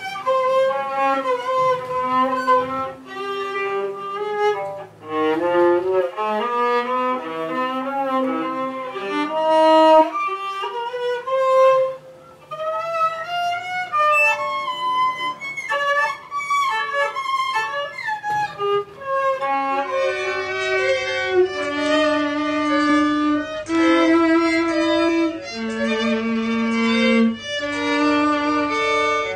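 Violin playing a slow melody, sliding between some notes. About twenty seconds in, it changes to two violin parts playing together in harmony.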